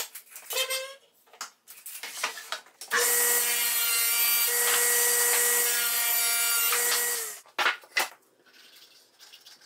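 Table saw ripping a plywood panel: a loud, steady whine with cutting noise for about four seconds, starting abruptly about three seconds in and stopping sharply. Light knocks and taps of the board being handled come before it, and a couple of short wooden knocks follow as the cut pieces are set down.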